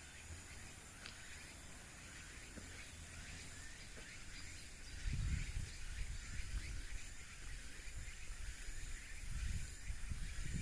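Evening insects chirring steadily, with a low, irregular rumble coming in about halfway through.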